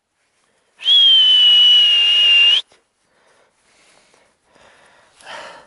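One long, loud, steady whistle of about two seconds, starting about a second in and cutting off sharply: a hunter's recall signal to a young hound.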